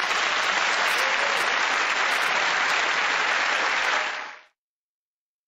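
Studio audience applauding, fading out about four seconds in.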